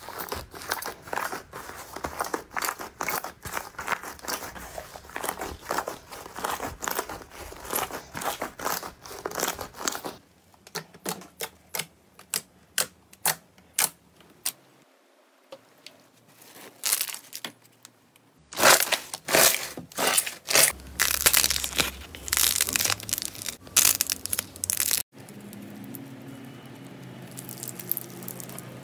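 Hands poking, pressing and squeezing slime, giving dense runs of small crackling clicks and pops. The clicks thin out for several seconds in the middle, then come thick and loud again before cutting off suddenly into a quieter stretch.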